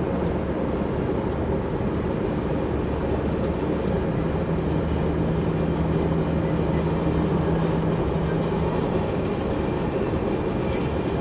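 Chevrolet S10 pickup driving at speed, a steady mix of engine and road noise, with a level hum rising out of it about four seconds in and fading away a few seconds later.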